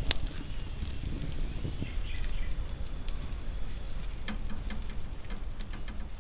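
Insects (crickets or cicadas) droning in the forest with one steady high tone, joined about two seconds in by a second, slightly lower insect tone that stops about two seconds later; scattered small clicks and crackles sound over it.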